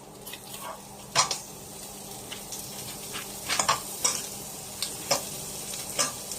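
Onions and green onions sizzling in butter in a frying pan, stirred with a utensil that clacks against the pan several times.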